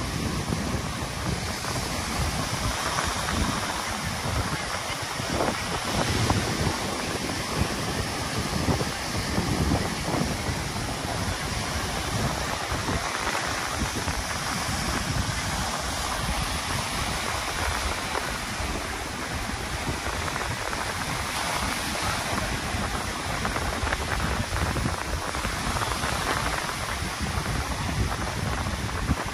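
Sea surf breaking and washing up a sandy beach: a continuous rushing wash that swells and eases as each wave comes in.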